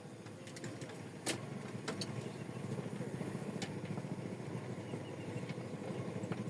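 A small engine running steadily, getting slightly louder, with a few sharp clicks over it.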